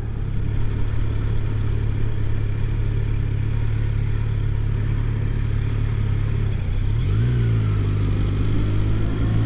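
Kawasaki Z900's 948 cc inline-four engine pulling steadily in fourth gear on the move. About seven seconds in, the revs rise and hold at a higher pitch.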